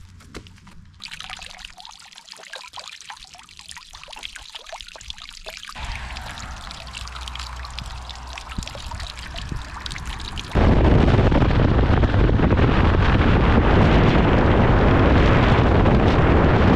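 Water running into a wooden trough, splashing steadily. About ten seconds in, it gives way to a sudden, much louder rush of wind buffeting the microphone held out of a moving car's window.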